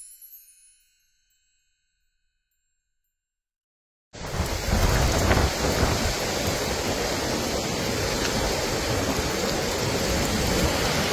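A last music note fades out in the first second, then silence. About four seconds in, a wind-driven forest fire cuts in suddenly: a loud, dense, steady rushing of wind and flames.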